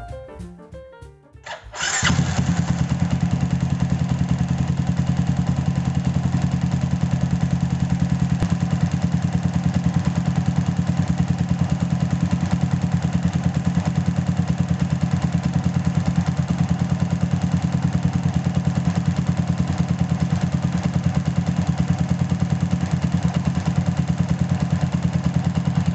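Motorcycle engine cranked over on its starter with the spark plug removed for a spark test, so it turns over without firing: a steady, fast, evenly pulsing churn that starts suddenly about two seconds in.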